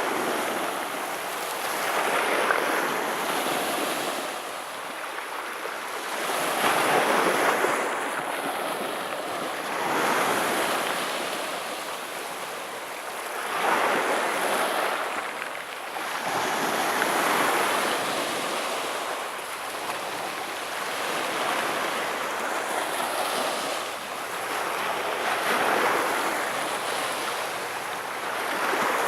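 Black Sea surf: waves breaking on the beach one after another, a swell of washing noise about every three to four seconds.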